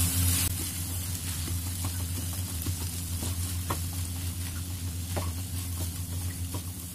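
Peas, mashed potato and spices sizzling in oil in a granite-coated kadai as a silicone spatula stirs them, with scattered soft scrapes and taps. A steady low hum runs underneath; the sizzle is louder for the first half second.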